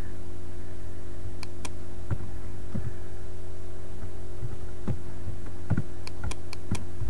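Steady electrical hum on the recording, with sharp computer-mouse clicks: two about one and a half seconds in, and a quick run of four near the end.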